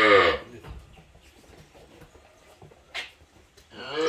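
Dairy cow mooing: one long moo ends about half a second in with its pitch falling away, and another moo starts near the end. A single sharp click comes in between.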